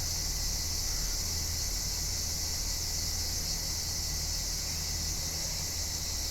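A steady, unbroken high-pitched chorus of summer insects, crickets or cicadas, with a low rumble underneath.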